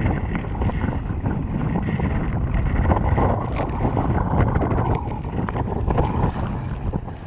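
Heavy monsoon wind buffeting the microphone in a loud, steady rumble, with water splashing and knocking against a kayak.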